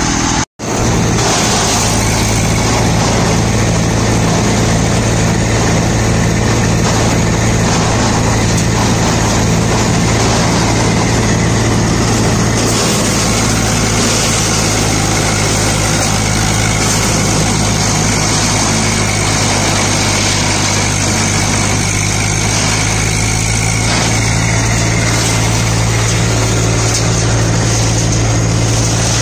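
Eicher 380 tractor's diesel engine running steadily at constant speed, a strong low hum with a hiss above it. The sound drops out for an instant about half a second in.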